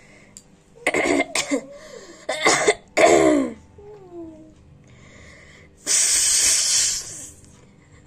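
A woman sneezing: a cluster of sharp explosive bursts about a second in, then two more between two and a half and three and a half seconds, the last ending in a voiced cry that falls in pitch. Near six seconds comes a loud blast of breath lasting about a second.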